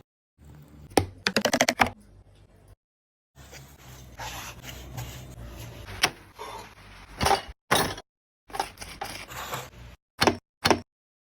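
Kitchen handling sounds: a string of sharp clicks, knocks and scrapes, with a quick run of rattling taps about a second in, broken by abrupt cuts to silence.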